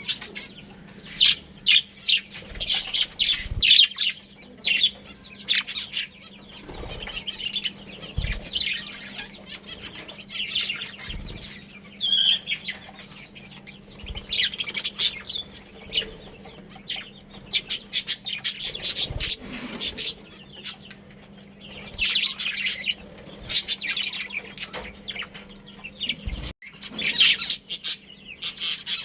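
A colony of budgerigars chirping and chattering in quick bursts that come in clusters, with a few soft low thumps among them and a faint steady hum underneath.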